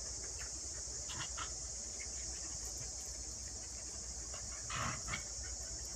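Steady high-pitched chorus of insects, unbroken throughout. A few brief soft noises sound over it, the loudest near five seconds in.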